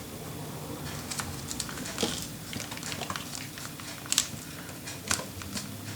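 Paper and cardstock being handled and pressed down by hand: scattered light taps and rustles, with a few sharper clicks about two, four and five seconds in.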